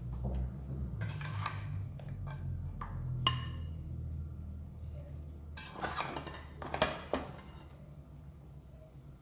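A serving spoon clinking and scraping against a pot of cooked biryani, in short separate strokes with a cluster about six to seven seconds in, over a steady low hum.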